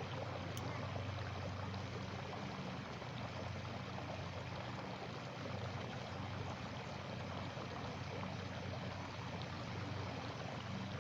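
Steady rushing noise like running water, with a low steady hum underneath and one faint click about half a second in.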